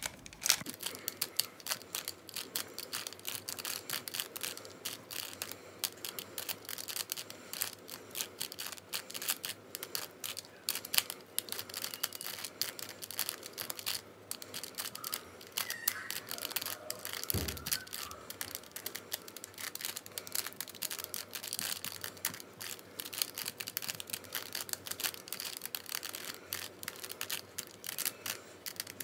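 A plastic Bermuda Uranus puzzle cube being twisted rapidly by hand to scramble it: a dense, irregular stream of clicks and clacks as its layers turn and snap into place.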